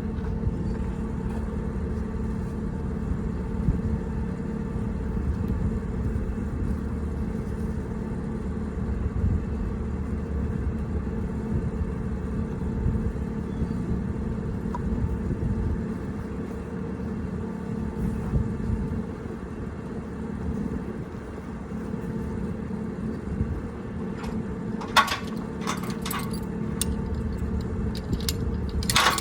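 A motor running steadily at an even speed, with a few sharp metallic clinks near the end.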